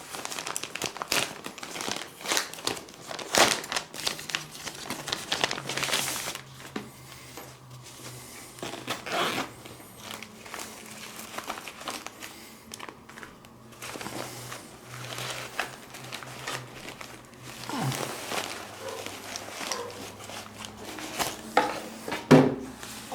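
Packaging being handled and opened by hand: irregular crinkling and rustling with sharper crackles coming and going.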